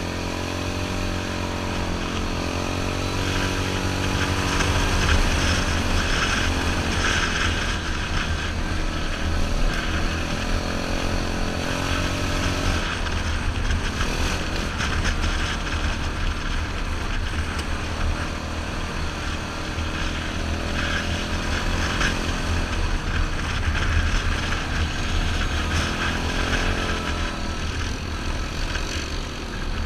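2003 Yamaha Grizzly 660 ATV's single-cylinder four-stroke engine running under way on a trail, its pitch rising and falling with the throttle, with swells near the start and again near the end.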